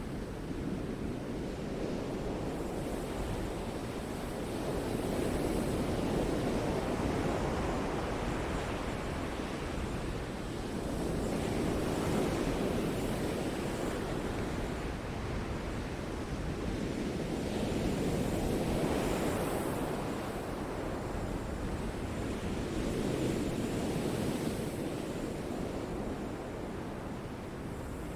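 Ocean surf: waves breaking and washing in, a continuous rushing noise that swells and eases about every five to six seconds.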